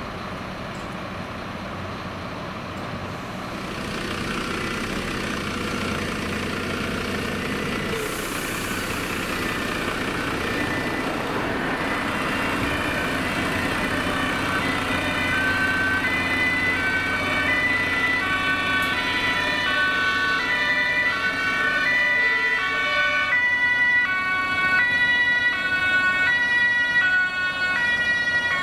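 Two-tone German Martinshorn sirens on an approaching fire engine and crew van, growing louder as they near. Two horns at different pitches alternate their high and low notes out of step with each other, over the rumble of the vehicles' engines and tyres.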